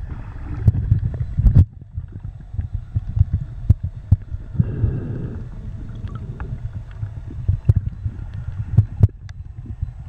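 Muffled underwater sound picked up by a submerged camera: a low rumble of moving water with many scattered sharp clicks and knocks. It is louder in the first second and a half and then drops off suddenly.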